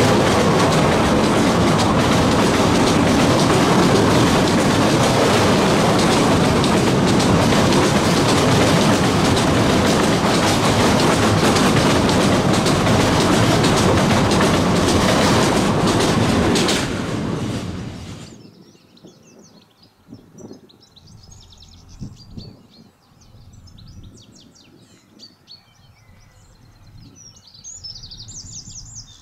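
A narrow-gauge Bord na Móna peat train of empty steel wagons passing close, its wheels rumbling and clattering over the rails. The sound is loud and steady, then falls away sharply about two-thirds of the way through. Birds chirp faintly after that.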